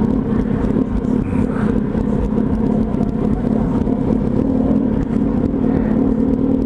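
Motorcycle engine running steadily at low revs as the bike rolls slowly, with no big revs.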